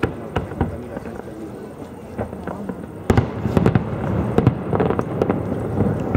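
Fireworks display: a rapid series of bangs and crackles from bursting aerial shells, growing denser and louder about three seconds in.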